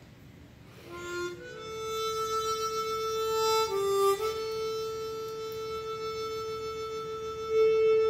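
Chromatic harmonica played: a few short notes about a second in, then a long held note, a brief step down to a lower note around the middle, and another long held note that swells near the end.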